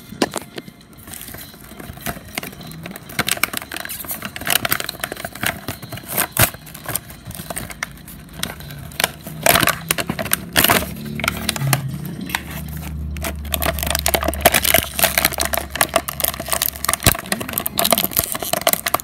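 Plastic blister packaging and cardboard box crinkling and crackling while an action figure is unpacked by hand, with many irregular clicks and rustles. A low rumble joins in about twelve seconds in and lasts about four seconds.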